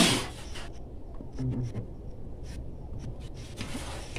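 A knock on a workbench fading right at the start, then faint handling noises: light clicks and a brief scrape as a hand tool is put to the shaft end of a sewing machine motor. The motor is not running.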